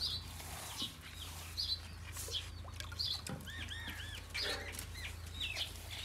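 Faint chirps and calls of farm birds and chickens, with a quick run of three chirps a little past the middle, over a steady low hum.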